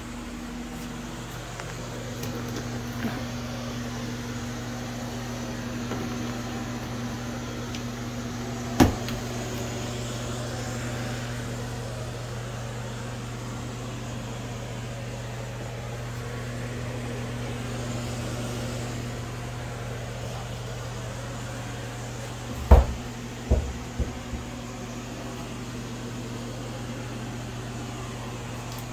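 A fan running with a steady low hum over a soft hiss. A sharp knock comes about nine seconds in, and a few more knocks come in quick succession a little past twenty seconds in.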